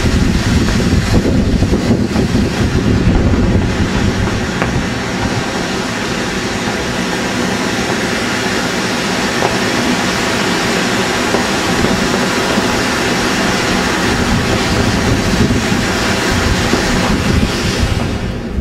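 Two Supervulkan No. 5 firework fountains spraying sparks make a steady, dense rushing hiss that eases off slightly near the end.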